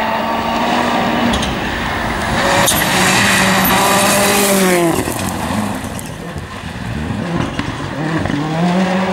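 Ford Fiesta R5 rally car's turbocharged 1.6-litre four-cylinder engine running hard at high revs. The revs drop sharply about five seconds in and climb again near the end.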